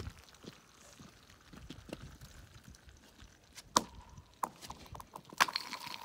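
Rocks striking thin lake ice: sharp cracks about two thirds of the way in and again near the end, with a lighter tap in between. Each loud hit is followed by a brief ringing tone from the ice sheet.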